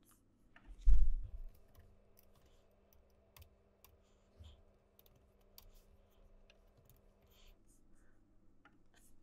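Typing on a computer keyboard with scattered light key clicks, and one low thump about a second in.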